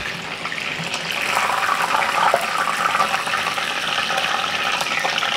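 Chicken wings deep-frying in duck fat in a wire basket: a steady bubbling sizzle that grows louder about a second in. This is the first fry, which takes the wings until their skin looks leathery.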